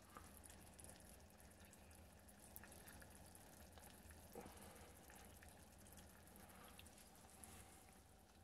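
Near silence: faint room hum with a few soft ticks.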